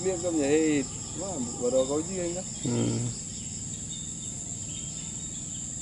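Insects buzzing steadily at a high pitch, with a person's voice over them for the first three seconds or so.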